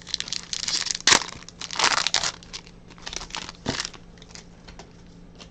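Foil wrapper of a Topps 2021 Update trading-card pack crinkling and tearing as the pack is opened, in several short bursts, the sharpest about a second in.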